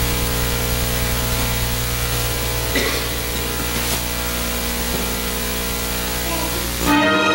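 Steady loud hiss with a low electrical hum from the church's sound feed while the video sits on its menu, with a couple of faint knocks. Music starts abruptly near the end as the video begins playing.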